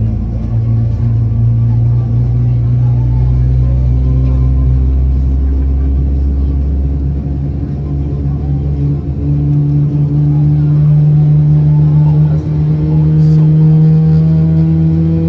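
Airliner jet engines heard from inside the cabin while taxiing: a steady hum of several low tones, which begin to rise slowly in pitch about halfway through.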